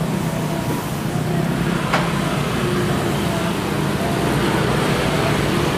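Steady street traffic noise, with faint voices in the background and one sharp click about two seconds in.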